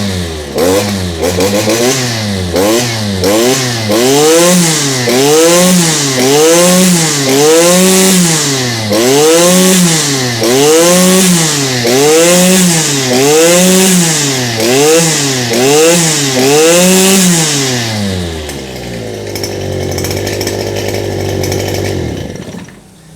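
Stihl FS 250 two-stroke brush cutter with a trimmer line head, its throttle blipped so the engine revs up and falls back about once a second, over and over. About eighteen seconds in it settles to a steady idle, then goes quiet shortly before the end.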